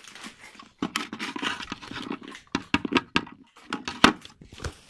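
Small plastic toy figures knocking and clattering onto a wooden table, with a sharp knock about four seconds in, among squawking animal-like noises made by a person's voice.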